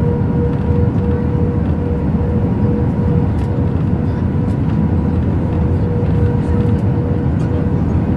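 Airbus A319 cabin noise heard from an aisle seat: a steady deep rumble of the engines and airflow, with a thin steady whine held over it.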